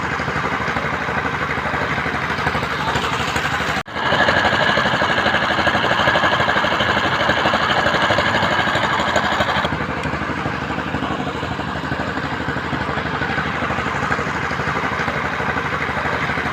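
A construction machine's engine running steadily with a fast, even pulse. It cuts out briefly about four seconds in, comes back louder with a higher whine for about six seconds, then settles a little quieter.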